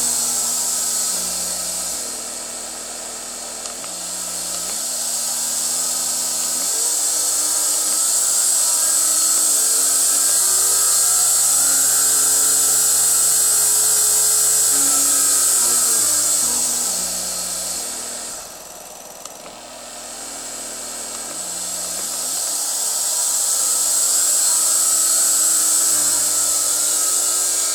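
240-volt AC motor fed by a variable frequency drive, its electrical hum stepping up and down in pitch in distinct steps as the drive's output frequency is changed, with a steady high-pitched whine over it. It drops to its lowest and quietest about two-thirds of the way through, then steps back up.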